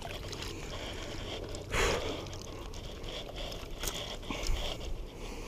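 A landing net with a large tilapia in it, handled just above the river, water running off the mesh, with one short noisy burst about two seconds in.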